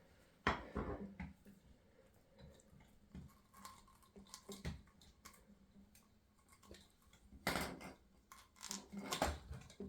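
Hard plastic vacuum-hose fittings being handled, with scattered clicks and knocks, a few louder ones about half a second in and a cluster near the end.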